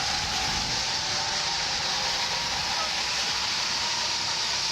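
Steady rushing background noise, brightest in the upper range, with a faint thin steady tone underneath.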